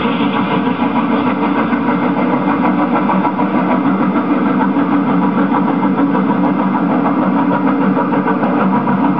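Steady engine running noise with no clear beat, a background sound track laid over the model railway.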